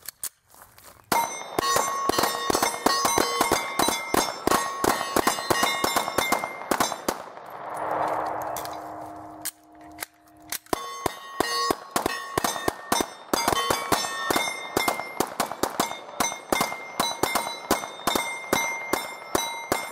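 Three pistols, a Sig Sauer SP2022 in .40 S&W, a Glock 20 in 10mm and a Ruger P93, firing together in rapid fire: a dense, overlapping string of shots. The shots break off for about three seconds near the middle, then resume. Metallic ringing from the steel targets being hit sounds between the shots.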